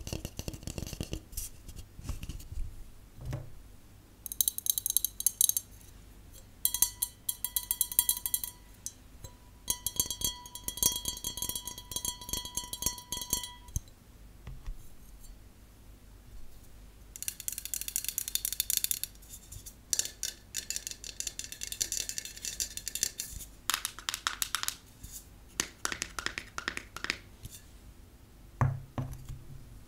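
Rapid tapping with long fingernails, first on a cardboard tube with a dull sound, then on drinking glasses, which ring with a clear steady tone under some of the runs. The tapping comes in quick runs with short pauses between them.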